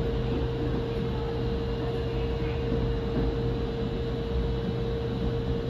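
Steady background hum of an empty underground metro platform: a low rumble with one constant tone above it, unchanging throughout.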